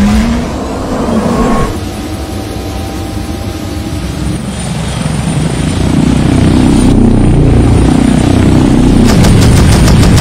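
Helicopter-like rotor and engine noise as the animated multi-rotor fire vehicle's rotors spin up for lift-off, growing louder about six seconds in, with a fast rotor chop near the end.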